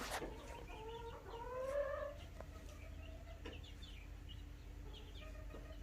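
Chickens clucking softly, with one drawn-out call rising in pitch about a second in, and short high calls scattered through.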